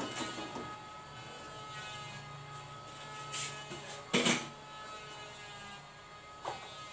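A steel wok set down on a gas stove with a clank, then a steady hum broken by a few short knocks and clatters of kitchenware.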